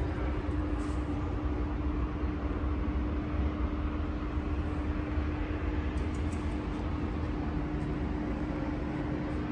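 Steady low mechanical rumble with a constant hum that does not change.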